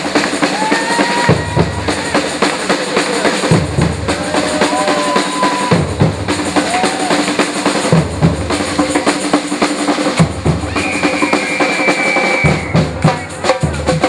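Dance music with a thumping bass drum, a full drum kit and sustained synth or vocal tones.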